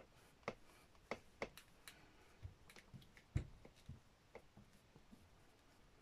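Faint scattered clicks and light taps as hands press cotton fabric down onto a gel printing plate, with one soft low thump about three and a half seconds in.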